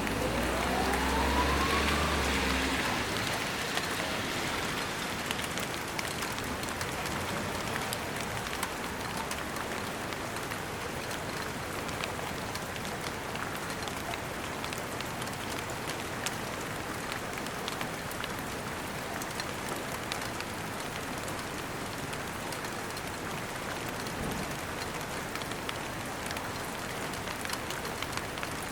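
Steady rain falling, a dense patter of drops on surfaces. In the first two or three seconds a low rumble and a rising whine sound under it.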